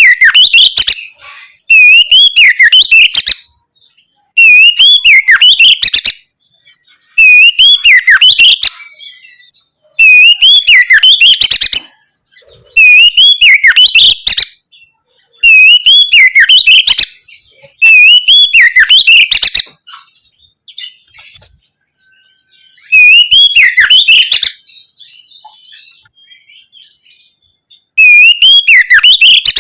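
An oriental magpie-robin (kacer) singing loud, clear 'ngeplong' song phrases of quick rising-and-falling whistles. Each phrase lasts about a second and a half and repeats every three seconds or so. Past the middle there is a longer pause, with softer twittering in between. This is a lure song meant to provoke another magpie-robin into answering.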